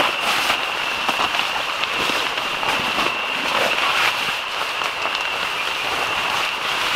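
Rain pattering on a tent, many small drop hits over a steady hiss, with a steady high-pitched tone running underneath.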